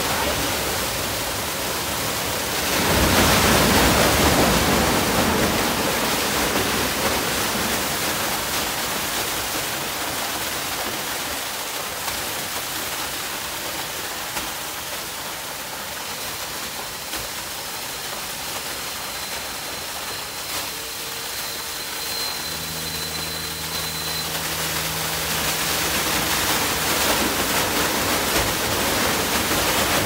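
Machine-harvested grapes, wet with juice, pour in a steady rush from a tipping trailer into a stainless-steel receiving hopper. The rush swells about three seconds in. A low mechanical hum joins for a few seconds past the two-thirds mark.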